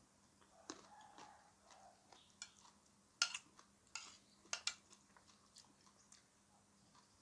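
Quiet eating sounds: chewing and crunching of food in the mouth, a series of irregular crisp clicks with the loudest about three seconds in.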